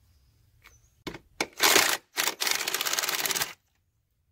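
Cordless impact driver hammering as it loosens bracket bolts: a couple of clicks, a short burst, then a longer run of rapid impacts lasting over a second, which cuts off suddenly.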